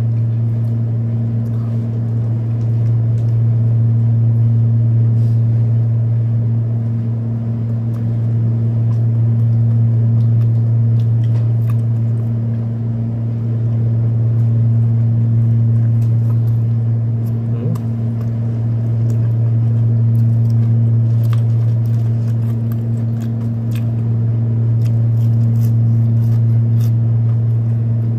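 Steady low hum of a window air conditioner running, loud and unchanging throughout, with faint scattered clicks of burger chewing over it.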